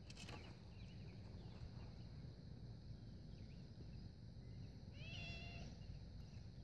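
Quiet outdoor ambience with a low rumble, a few faint bird chirps, and one short mewing call about five seconds in that rises at its start and then holds its pitch.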